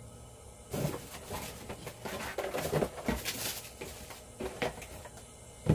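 Rustling, clicking and knocking of equipment being handled, with a sharp knock near the end.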